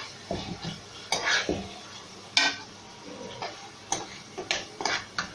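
Metal spoon stirring onion-tomato masala as it fries in a metal pot, scraping and clinking against the pot's sides and bottom in a series of irregular strokes.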